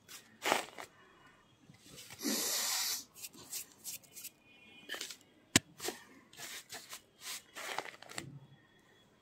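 Fingers crushing and raking kerosene-dampened naphthalene powder on a plastic sheet, giving irregular crunching and rustling, with a longer scrunch about two seconds in. A single sharp click about halfway through is the loudest sound.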